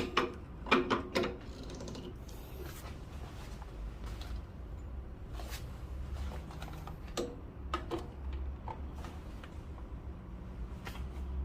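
A few clicks and knocks of the portafilter being handled, then a steady low hum of the espresso machine's pump pushing water through a puck ground too fine, so that the shot is choking.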